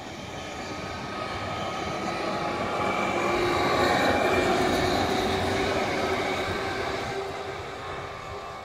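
Pesa Dart ED161 electric multiple unit passing close by, wheels running on the rails with a steady whine over the rumble. It is loudest about four seconds in, then fades as the train pulls away.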